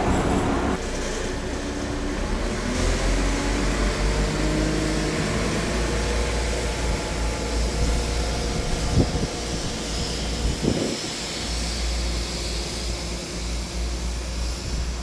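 West Midlands Railway class 172 Turbostar diesel multiple unit with its underfloor diesel engines running, a steady low drone with a few engine tones above it. Two brief knocks come about nine and eleven seconds in.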